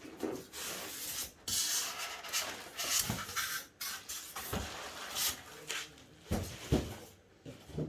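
Cardboard box and packaging being handled: irregular rubbing and scraping of cardboard and foam, with a few soft knocks.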